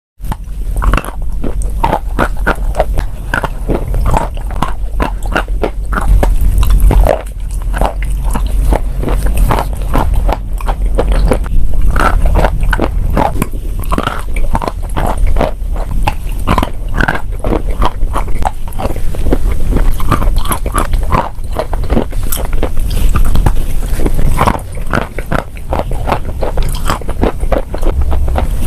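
Close-miked biting and chewing of dry chalk and clay, a steady run of sharp, irregular crunches and crackles with a deep rumble underneath.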